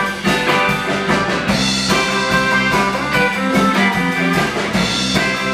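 Live blues band playing, led by electric guitar over a steady drum beat.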